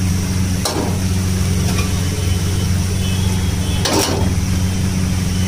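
A metal spatula strikes and scrapes a steel wok of stir-frying chow mein noodles, two sharp strokes, one about a second in and one about four seconds in, over the steady low hum of the street stove's burner.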